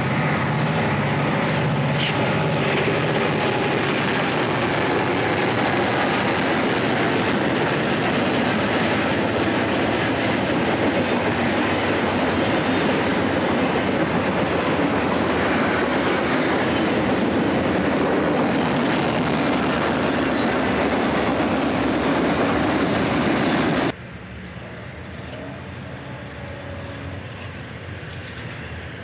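Freight train rolling past close by: a loud steady rumble of wheels on rail, with a faint squeal about two seconds in. Near the end, after an abrupt cut, a quieter low diesel locomotive rumble as a freight creeps slowly by.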